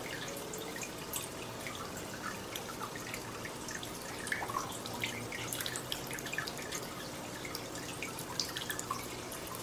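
Water flowing and trickling in a shallow, brim-full open-top planted aquarium, with many small drips and splashes over a steady watery hiss.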